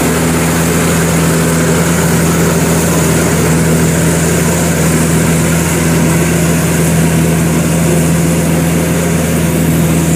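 Zoomlion EH100E rice combine harvester running steadily while cutting and threshing rice, a constant engine and machinery hum with no change in speed.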